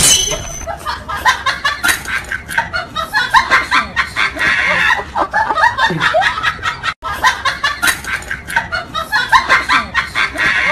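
Continuous high-pitched laughing and giggling in quick, choppy bursts, broken off for an instant about seven seconds in.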